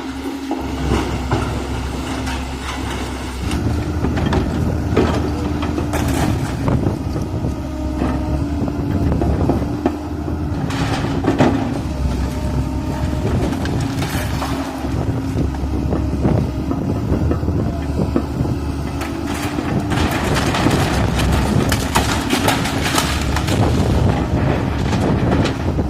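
Komatsu PC130F excavator's diesel engine running steadily under load, with repeated bangs and clattering crashes of the building being broken up, thickest in the second half.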